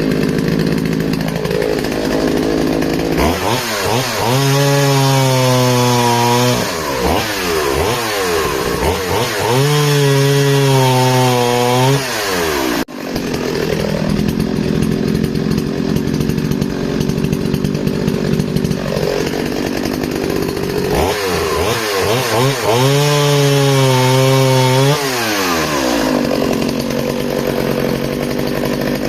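Partner S50 vintage chainsaw's two-stroke engine idling, then three times opening up to full throttle and holding high revs for a couple of seconds as it cuts through wood, before dropping back to idle. There is a brief break in the sound about 13 seconds in.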